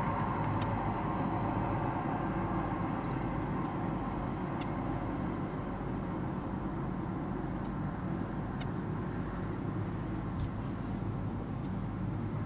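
Boeing 747-400F's four jet engines at low taxi thrust: a steady rumble, with a high whine that fades within the first second.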